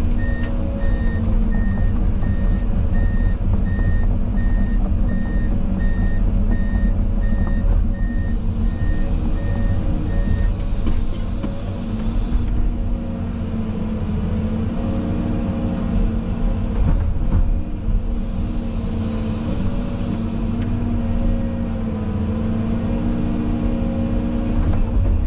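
Excavator's diesel engine running under hydraulic load, heard from inside the cab. A travel alarm beeps steadily about twice a second and stops about ten seconds in.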